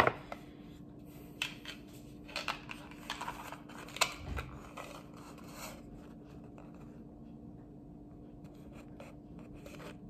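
Light clicks and rattles of a silver chain necklace and its box being handled. The clicks come in scattered bunches through the first six seconds, with one sharper click about four seconds in, then only a few faint ticks near the end, over a faint steady hum.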